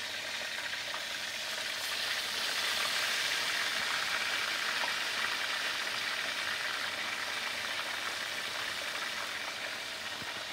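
Marinated oxtail pieces sizzling as they sear in hot canola oil: a dense, steady frying hiss that swells about two seconds in, then slowly eases as the added pieces cool the oil.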